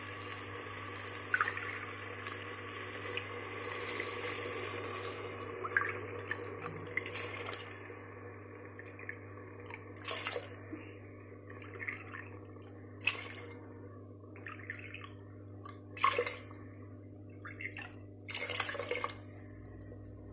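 Water poured by the cupful into a clay pot of millets and vegetables. A steady pour runs through the first seven or so seconds, then gives way to a string of shorter separate pours and splashes.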